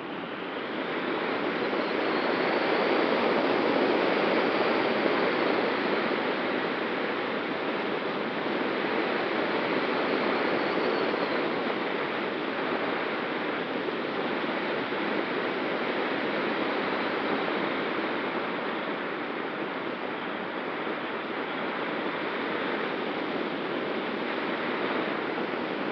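Steady rush of airflow over a wing-mounted camera on an ASW 19 glider in flight, with a faint steady hum beneath it. The rush swells a little in the first few seconds, then settles.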